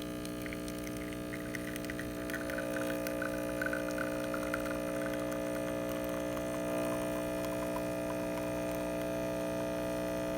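Breville BES870XL espresso machine's vibratory pump humming steadily while pulling an espresso shot, with a faint crackle early on and a tone in the hum growing stronger about two seconds in. The machine is running normally with its new solenoid valve assembly, with no grinding.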